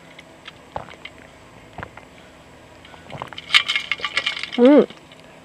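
Coffee cup and utensils clinking: a few scattered light clicks, then a quick run of ringing clinks about three and a half seconds in. Just before the end comes a short pitched sound that rises and falls.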